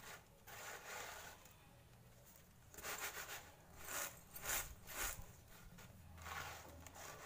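Faint dry swishing and rattling of flattened rice (poha) flakes tossed and shaken in a winnowing tray, a run of short swishes about three to five seconds in. The flakes are being winnowed to shake out their husk.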